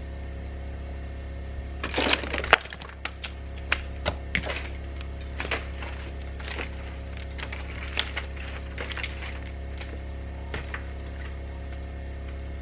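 Ice cracking and breaking: a quick cluster of sharp cracks about two seconds in, then scattered single cracks and knocks, over a steady low hum.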